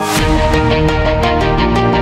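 Background music: the beat kicks in with a cymbal crash at the start, then drums with quick, even hi-hat ticks over sustained synth chords.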